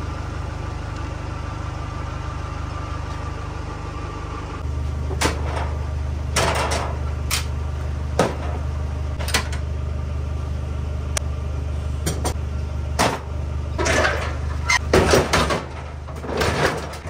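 Tools and a trolley jack handled in an aluminium ute toolbox: irregular metal clanks and knocks, thicker near the end, over a steady low hum that grows louder about four and a half seconds in.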